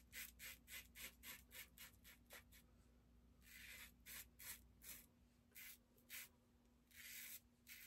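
Magnetic safety razor on its scalloped side scraping through stubble. It starts with quick short strokes, about four a second, then makes a few longer, more spaced strokes. Faint.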